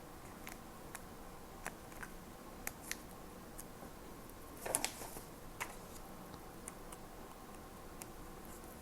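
Stationery being handled on a desk: scattered light clicks and taps, with a short, louder burst of paper handling or a scissors snip just before the middle, over a faint steady hum.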